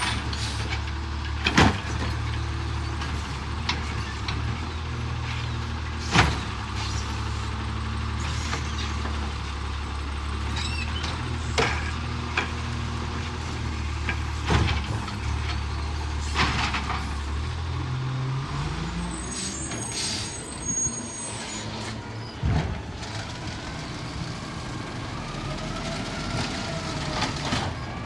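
Automated side-loader garbage trucks at work: a diesel engine runs steadily, with sharp bangs every few seconds and some air hiss. The engine revs up about two-thirds of the way through.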